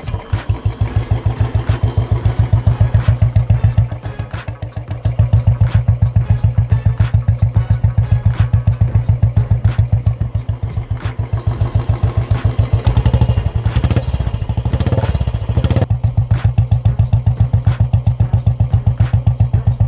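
Royal Enfield Classic 350's single-cylinder engine running through an aftermarket Punjabi short-bottle silencer, giving a steady thumping beat at idle. The revs rise briefly about two-thirds of the way through, then settle back to idle.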